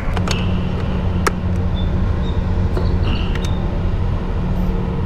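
Steady low engine hum, with a few short sharp clicks over it.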